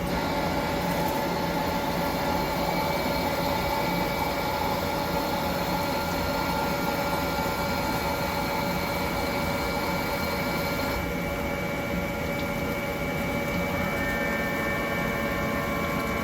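Hankook Protec-7NA CNC lathe running with a steady multi-tone whine from the spindle drive over a machining hiss. The pitch shifts slightly near the end as the speed changes.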